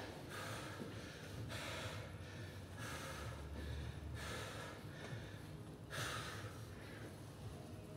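A man breathing hard through mouth and nose, about five heavy breaths a second or so apart, as he catches his breath between sets of heavy kettlebell presses.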